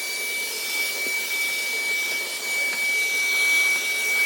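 Cordless stick vacuum cleaner with a high-speed brushless motor running steadily while vacuuming dust: a high, even whine over a rush of air, with a few faint ticks as the nozzle meets the surface.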